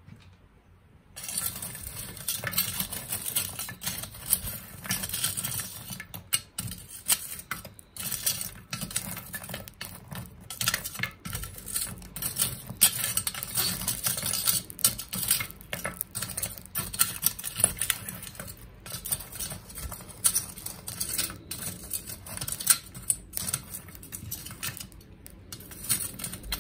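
Dense crackling and popping from a binchotan charcoal fire in a shichirin grill, many sharp snaps over a steady hiss. It starts suddenly about a second in and cuts off just before the end.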